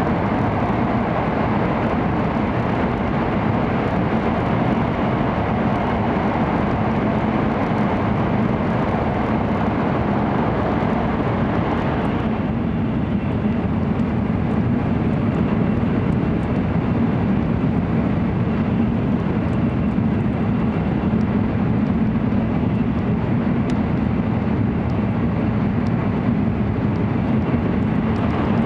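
N700 series Shinkansen running at speed, heard from inside the passenger cabin: a steady rushing rumble, louder and harsher while in a tunnel. About twelve seconds in the train comes out of the tunnel and the higher rush drops away, leaving a lower, steady running noise.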